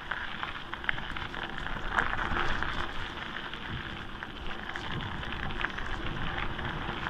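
Bicycle tyres rolling downhill over a gravel road: a steady crackling crunch of loose stones with many small clicks and rattles, over a low rumble.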